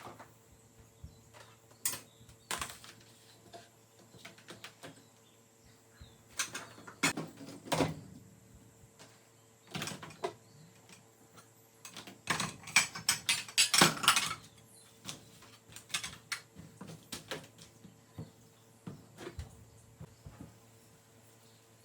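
Kitchen clatter from cleaning: scattered knocks and clicks of objects being handled and set down, with a dense run of clattering about twelve to fourteen seconds in.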